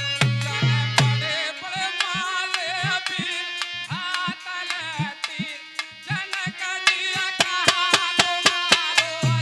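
Indian folk music: a dholak beating a steady rhythm under a harmonium melody. The heavy bass beat drops to lighter strokes about a second and a half in and comes back strongly near the end.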